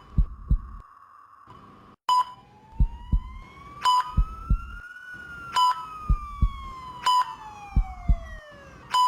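ICU patient monitor sound effect: a short beep about every one and a half to two seconds, with a double heartbeat thump between beeps, over a steady hum. About two seconds in, a siren wail joins, slowly rising and then falling.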